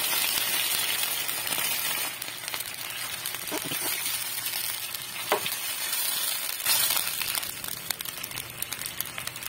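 Canned sardines in tomato sauce with sautéed onion and garlic sizzling in a nonstick frying pan, stirred with a wooden spatula at first. The sizzle is louder for the first two seconds, then quieter, with a few light clicks.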